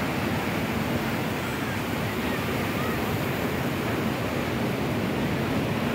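Sea waves breaking on the shore: a steady rush of surf, with wind buffeting the microphone.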